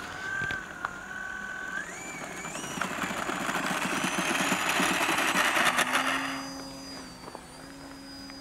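Electric motor and propeller of a small RC biplane run up to full throttle for a takeoff roll: a whine that climbs in pitch, with propeller rush building to its loudest about five or six seconds in, then fading as the plane climbs away.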